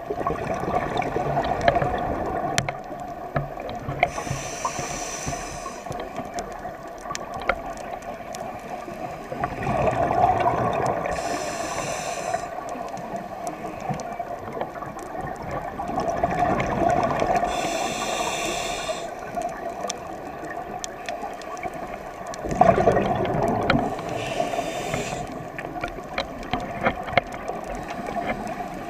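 Scuba diver breathing through a regulator, recorded underwater: a hiss on each inhale and a rush of bubbles on each exhale, about four breaths some six or seven seconds apart.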